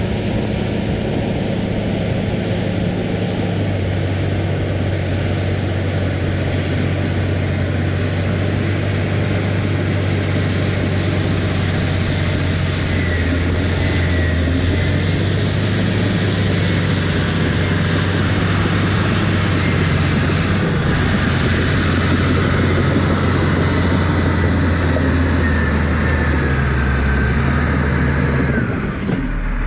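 Diesel engine of an earthmoving machine running steadily under load while pushing topsoil. Its pitch shifts up and down a few times, then briefly dips and settles lower near the end.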